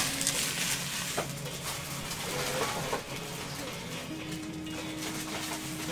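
Foil trading-card pack wrapper crinkling as it is handled, loudest in the first second or so, then quieter rustling with a few light clicks.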